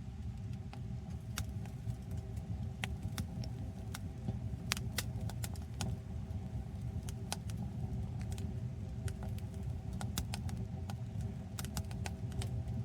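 Wood fire burning in a tent-Mark Designs Wood Stove M, crackling with irregular sharp pops over a steady low rumble.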